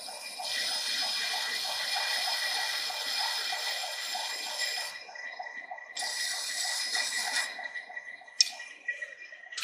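A hand file rasping against freshly cut threads on a steel workpiece turning in a Monarch lathe, cleaning them up. The scraping has a ripple about four times a second over the lathe's steady whine. It eases off around the middle, and a couple of sharp clicks come near the end as the file is taken away.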